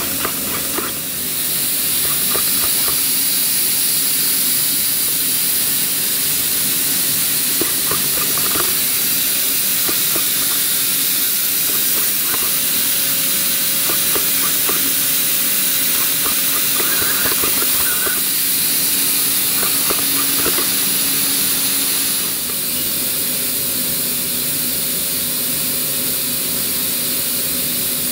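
Steady hiss with a faint low hum under it, the running background of a powered-up Haas VF-5SS CNC vertical mill, with a few faint ticks.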